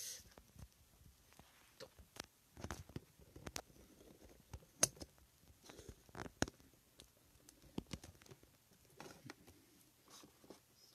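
Scattered light clicks and knocks, about a dozen at irregular intervals, with faint rustling between: handling noise at a computer desk.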